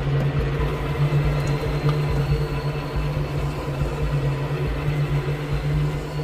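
Steady low droning hum with faint higher tones held above it, unchanging throughout, the kind of dark ambient drone used as a horror sound effect.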